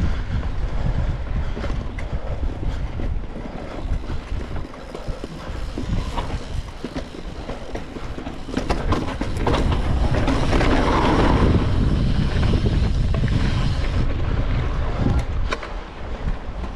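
Mountain bike ridden over a dirt forest trail, heard from a rider-worn action camera: tyre rumble with rattling and knocks from the bike, and wind on the microphone. It gets louder and rougher from about nine seconds in until about fourteen seconds.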